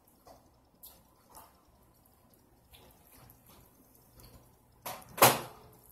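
Mouth noises of someone eating a mushroom Swiss burger: faint wet smacks and clicks while chewing, then a louder short noisy burst near the end.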